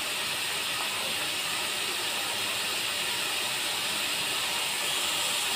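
Small fish and spice paste sizzling steadily in oil in a kadhai, an even hiss frying on low flame.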